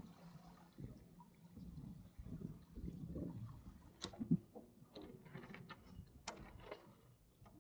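Water sloshing and lapping against a small sailboat's hull, low and uneven, with a few sharp knocks past the middle.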